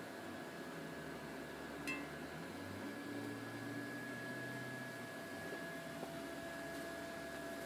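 Electric blower fan of an airblown inflatable spider running steadily: a soft hiss with a faint high whine. A small click about two seconds in.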